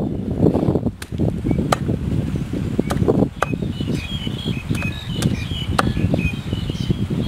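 A cleaver chopping grilled meat on a wooden chopping block: about eight sharp chops at uneven intervals, over a steady rumble of wind on the microphone.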